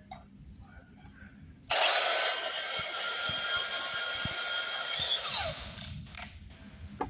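Power tool cutting a piece of all-thread rod: a loud, high-pitched motor whine that starts suddenly about two seconds in, runs for about three and a half seconds, then winds down in pitch as the tool is released.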